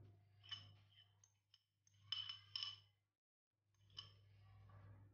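Faint scraping and clicking of a metal spoon against the inside of a glass bowl as mashed boiled potato is scraped out, with a few sharp taps about two seconds in, over a low steady hum.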